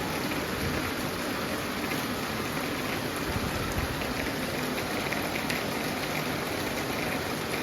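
Steady rain falling, an even wash of noise with no breaks.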